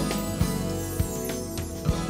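Closing background music: held chords with three low thuds on the beat.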